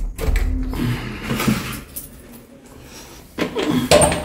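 A rim night latch on a wooden door being turned and the door pulled open, with handling noise. A short voice sounds near the end.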